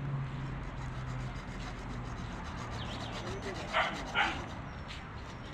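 A dog barks twice in quick succession about four seconds in.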